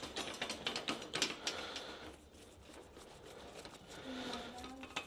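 Metal hospital-bed half rail being fitted and tightened onto the bed frame: a quick run of clicks and rattles in the first two seconds, then quieter handling, with a brief steady hum about four seconds in.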